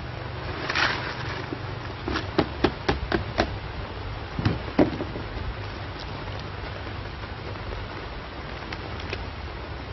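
A short scrape about a second in, then a quick run of about six light knocks, roughly four a second, followed by two louder knocks and a few faint ticks, over a steady hiss.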